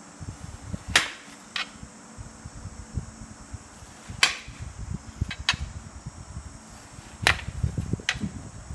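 Kitchen knife cutting through watermelon flesh, its blade tapping the metal tray beneath: several sharp clicks a second or two apart, over soft handling noise.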